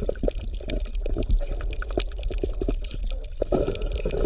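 Bubbling, gurgling water: irregular pops over a steady low rumble, as in underwater ambience.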